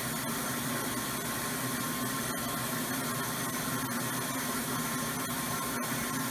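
High-volume electric in-tank fuel pump running steadily on a stock Ford Mustang fuel pump hanger: an even hum with a hiss. With the hanger's restrictive 1/4-inch return line, the pump is picking up air bubbles and cavitating, and the fuel pressure climbs and bounces.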